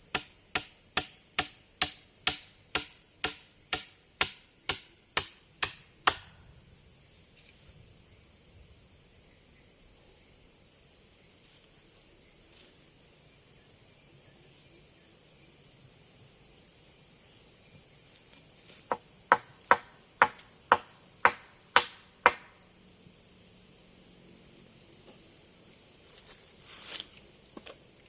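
Rapid, evenly spaced chopping blows on wood, about two a second, stopping about six seconds in and returning near the end as a quicker run of eight blows. Under them runs a steady high-pitched insect drone.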